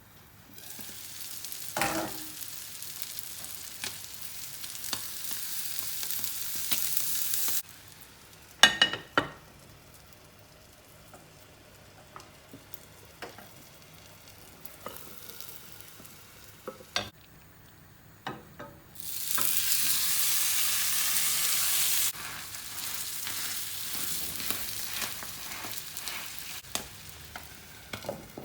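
Food sizzling in a hot frying pan, in stretches that stop and start abruptly, with sharp utensil clicks in the gaps and one loud clack about nine seconds in.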